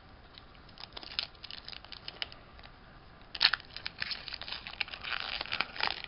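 Foil wrapper of a Pokémon trading card booster pack being crinkled and torn open. Scattered crackles come first, then a denser run of tearing and crinkling from about three and a half seconds in.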